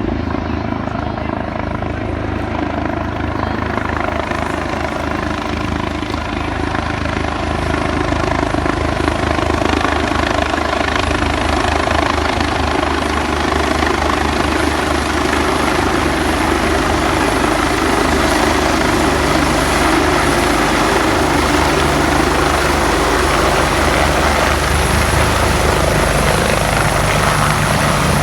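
Medical air-ambulance helicopter coming in to land, its rotor chop and engine noise growing louder about a third of the way through, with a high whine coming up in the second half.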